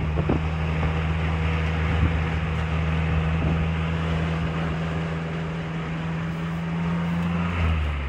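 Car engine droning at a steady pitch while driving, with tyre and wind noise, heard from inside the moving car. The engine note changes near the end.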